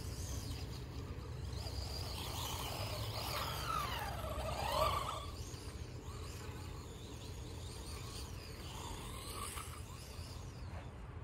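Wltoys 144001 RC car's electric motor whining, its pitch sliding down and then back up as the car slows and speeds up between about two and five seconds in, with a fainter whine again near the end. A steady low rumble runs underneath.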